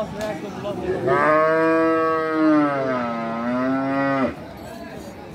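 A cow mooing: one long call of about three seconds that dips in pitch in the middle, rises slightly and cuts off abruptly.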